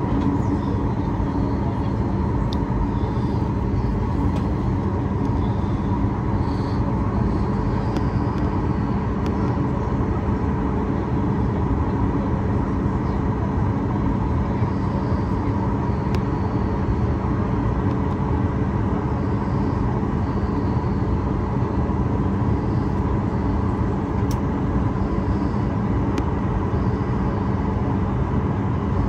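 Steady jet airliner engine and airflow noise heard inside the passenger cabin, a constant rumble with a low hum that holds level throughout.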